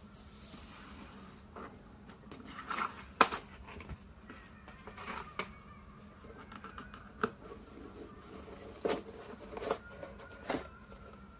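Hands handling the plastic and cardboard packaging of a boxed pair of earphones: scattered clicks, taps and light scrapes, the sharpest about three seconds in.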